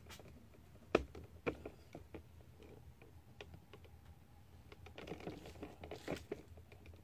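Light handling noises: a few scattered sharp clicks, the loudest about a second in, and a cluster of softer clicks and rustling about five seconds in.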